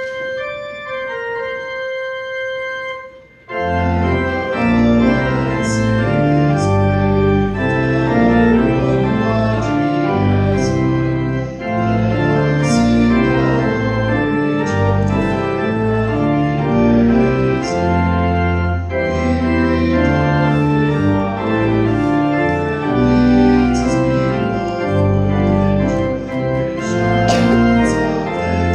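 Church organ playing the music for the post-communion thanksgiving canticle: a few soft held notes, then about three and a half seconds in the full organ with deep bass enters, playing sustained chords that move in a steady hymn-like pace.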